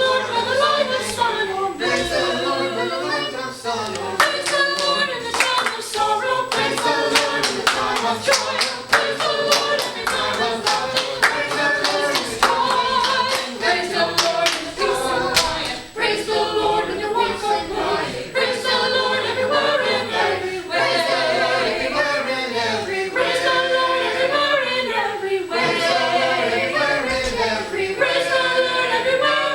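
Church choir singing an upbeat praise song, with rhythmic hand clapping through roughly the first half.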